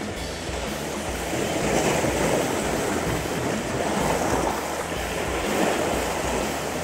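Small sea waves washing over a rocky reef shore, swelling and falling back about every two seconds.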